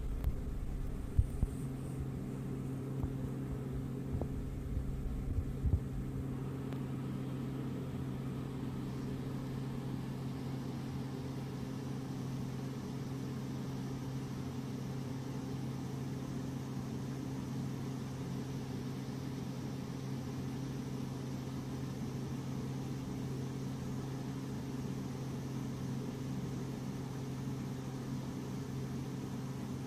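Steady low mechanical hum with a constant pitch, with a few low thumps during the first six seconds.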